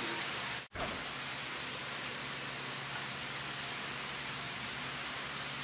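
Steady hissing noise with a faint low hum underneath; it drops out abruptly for an instant less than a second in, then carries on unchanged.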